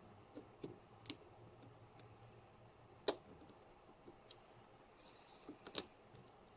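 Scattered light metallic clicks and taps of small steel gun parts and a screwdriver being handled while the striker-spring cap is unscrewed from a small Martini rifle's breech bolt. There are a few soft clicks at first, a sharper one about three seconds in, and a short cluster ending in another sharp click near the end.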